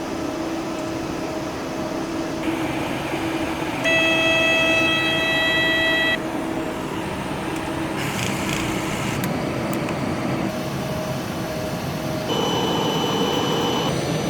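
Steady mechanical hum of running machinery. A high whine joins it for about two seconds a few seconds in, and a fainter high tone sounds near the end.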